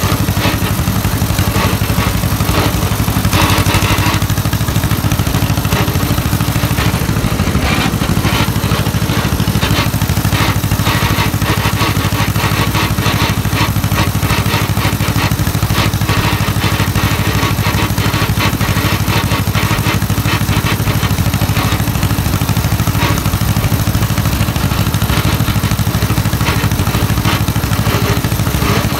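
A John Deere M tractor's vertical two-cylinder engine running steadily while the tractor drives along, its even firing pulses close to the microphone.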